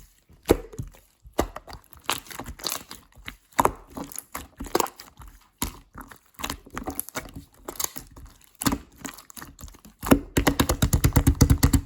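Clear slime being squished and pressed by hand, giving irregular wet clicks and pops, then a quick run of rapid pops near the end.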